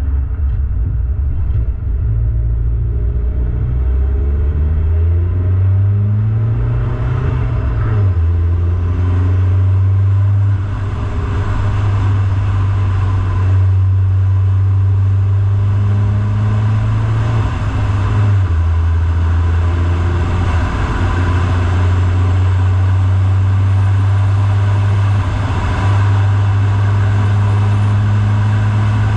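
Car driving uphill: a steady engine drone with road noise, the engine note stepping up and down in pitch several times as the car shifts gear and changes speed.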